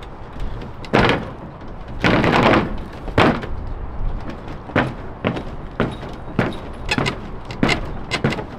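Repeated thuds of a person jumping on a newly built wooden cockpit platform on a steel frame, testing its strength. There are about a dozen impacts, roughly one every half second to second, with a longer burst of noise about two seconds in.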